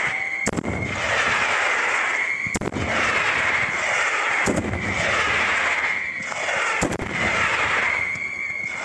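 Fireworks display: fans of rising shells make a hissing rush with a steady high whistle in it, broken by a sharp bang about every two seconds, four in all.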